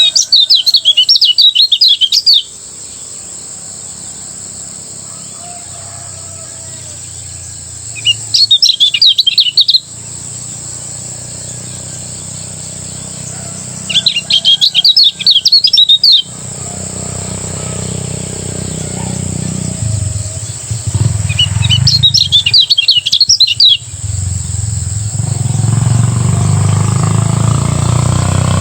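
Kecial kuning, a Lombok white-eye songbird, singing its rapid chattering 'ngejos' song in four bursts of about two seconds each, spaced roughly six seconds apart. A steady high-pitched tone runs underneath, and a low hum swells over the last few seconds.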